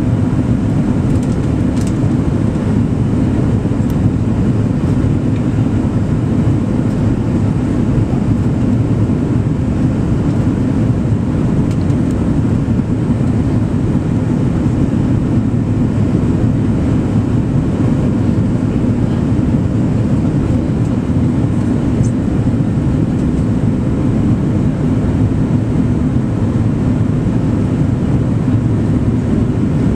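Steady in-cabin noise of an Airbus A300-600 airliner on approach with flaps extended: an even low rumble of engines and rushing air, with a few faint steady tones above it and no change throughout.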